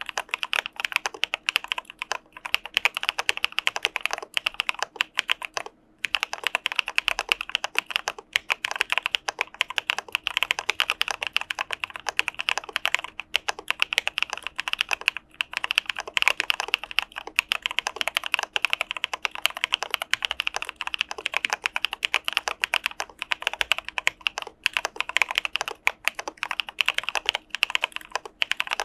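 Continuous fast typing on an Arisu Alice-layout mechanical keyboard with CPSD (Cà Phê Sữa Đá) linear switches: a dense stream of key clacks, with a short pause about six seconds in.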